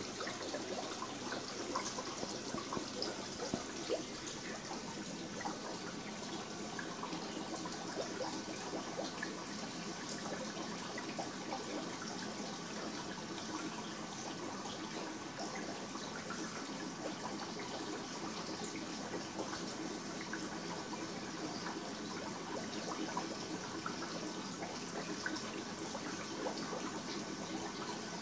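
Steady trickling and bubbling of aquarium water from the tank's filtration or aeration, with small crackles of bursting bubbles running through it.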